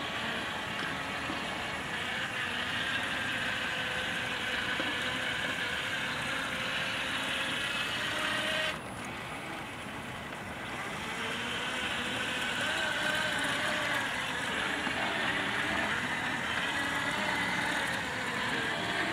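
Yarbo robotic yard machine fitted with its S1 snow-blower module, its electric drive and attachment motors whirring steadily as it drives across the lawn. The sound drops suddenly about nine seconds in and comes back up about two seconds later.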